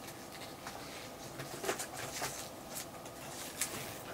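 Faint rubbery squeaks and scattered light ticks of latex twisting balloons being stretched, wrapped and tied by hand.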